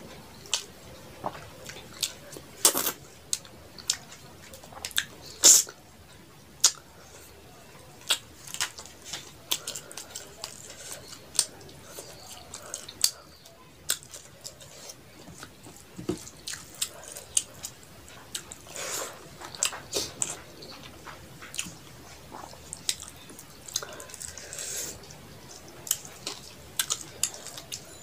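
Close-miked eating sounds: wet chewing, lip smacks and the squish of rice and curry being mixed and eaten by hand, with irregular sharp clicks throughout and the loudest smacks about 3 and 5½ seconds in.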